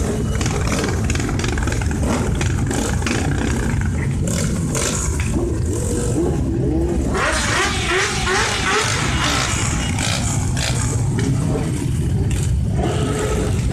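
A procession of motorcycles, mostly sport bikes with some cruisers, riding past at low speed: many engines running together, with bikes revving up and down and a louder stretch of engine noise about seven to nine seconds in.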